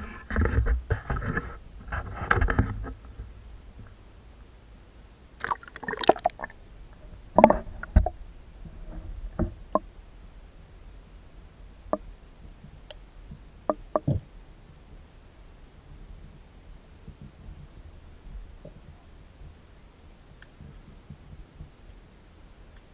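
Water sloshing and knocks of an action camera being lowered into harbour water, loudest in the first few seconds and again around six to eight seconds in. After that, a faint steady underwater hiss with a few sharp clicks.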